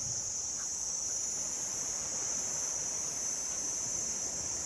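Chorus of insects giving a steady, unbroken high-pitched drone.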